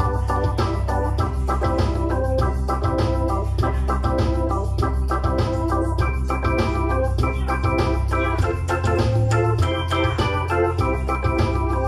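Portable electronic keyboard playing a gospel accompaniment with an organ-like voice: sustained chords over a steady bass line.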